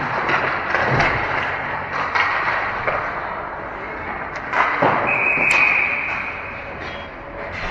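Ice hockey play in an echoing arena: repeated sharp knocks and thuds of sticks, puck and bodies against the boards. About five seconds in, a referee's whistle sounds for about a second.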